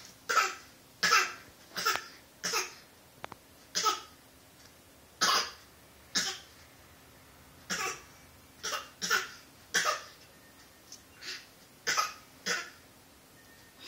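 A person giving a series of short, deliberate fake coughs, about fourteen single coughs spaced irregularly, roughly one every second.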